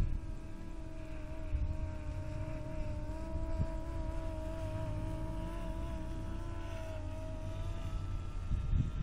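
DJI Phantom 3 Professional quadcopter's propellers humming: a steady whine of several tones that waver slightly in pitch and fade near the end, over low wind rumble on the microphone that picks up toward the end.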